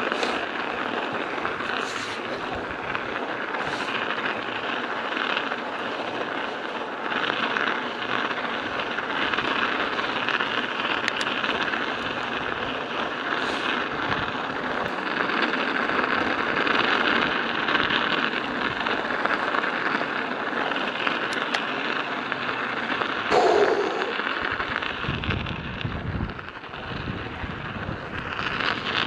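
Studded bicycle tyres rolling on an icy road: a steady crunching clatter of the metal studs, with scattered sharper clicks.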